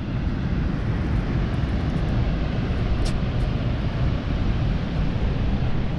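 Steady low rumbling noise with no clear pitch, and a faint click about three seconds in.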